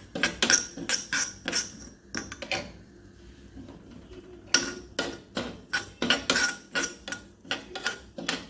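Stainless-steel spoon scraping and tapping against a nonstick pan while stirring semolina roasting in ghee, in quick repeated strokes with a short pause about three seconds in.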